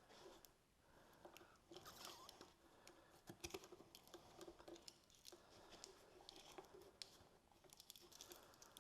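Faint, scattered small clicks and rustles of hands handling electrical wire and small plastic parts, with a few sharper ticks. The loudest is about three and a half seconds in.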